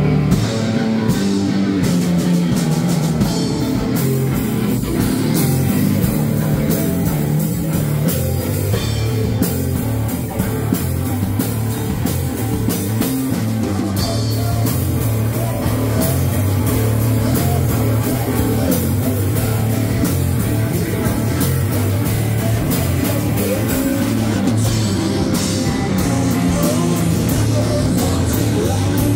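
Live rock band playing loudly: electric guitars and a drum kit with cymbals.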